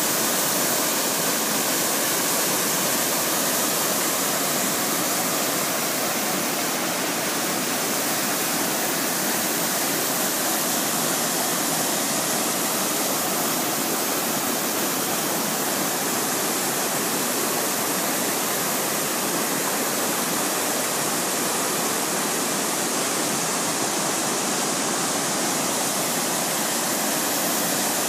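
Whitewater rushing steadily down a cascading waterfall over rock slabs and chutes, an even, unbroken rush of water.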